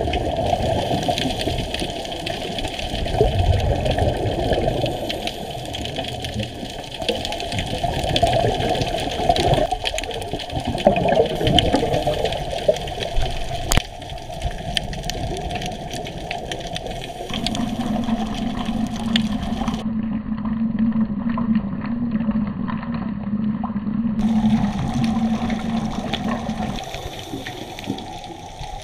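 Muffled underwater noise picked up through a dive camera's waterproof housing: a constant rush of water, with a steady low hum for several seconds in the second half.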